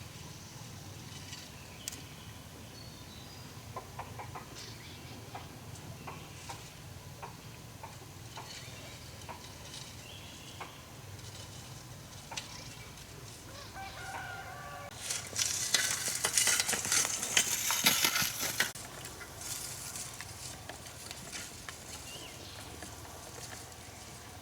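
Chickens calling and clucking over a faint low hum, with scattered small clicks. About fifteen seconds in, a loud, scratchy hiss lasts about three seconds.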